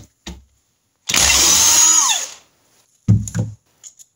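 Cordless impact driver running in one burst of about a second, its motor whine rising and then falling as it spins off an oil pipe fitting on the engine cases. This comes after a couple of light clicks, and near the end there are two low thumps close together as the tool is set down on the towel-covered bench.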